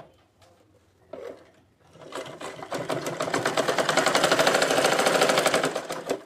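Domestic sewing machine stitching elastic onto a cloth waistband: after a couple of faint clicks it starts about two seconds in, picks up to a fast, even clatter of stitches, and stops abruptly just before the end.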